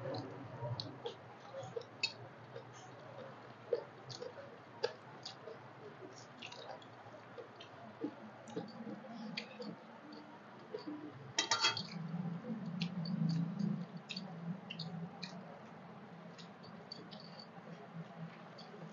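Close-up eating sounds: wet lip smacks and chewing, and fingers mixing and squishing rice and curry on steel plates, as scattered soft clicks. A short clatter comes about eleven seconds in, the loudest moment, like a hand or bangle knocking a steel plate.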